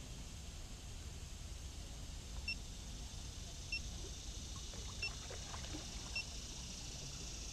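Steady low rumble and high hiss of outdoor background, with a short high pip repeated four times about a second apart from midway through.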